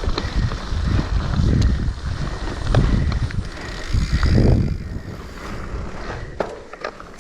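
Wind buffeting the microphone on a moving mountain bike, with sharp clicks and rattles from the bike over rough ground. The gusts ease after about five seconds.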